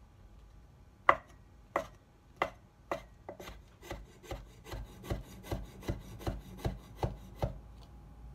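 Cleaver slicing shiitake mushrooms on a wooden cutting board: the blade knocks on the board, a few slow strokes and then a quicker run of about two or three a second.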